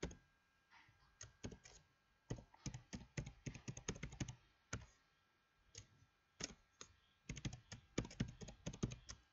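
Typing on a computer keyboard: quick runs of keystrokes broken by short pauses, with a few single keystrokes between.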